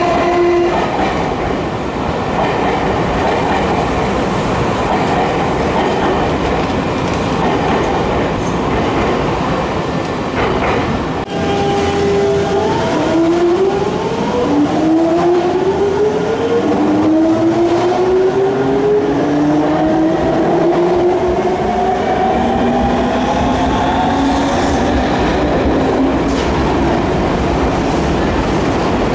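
Nankai electric trains at a platform: first a train running past with the steady noise of its wheels on the rails, then, from about 11 s in, another train pulling away, its traction motors whining in a series of rising glides, each stepping down and climbing again as it accelerates.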